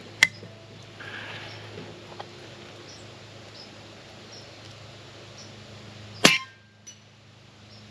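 A single shot from an AGT Vulcan 3 .25-calibre PCP air rifle with a shrouded barrel, firing a slug: one sharp crack about six seconds in, followed by a faint tick a little over half a second later. A sharp click sounds just after the start.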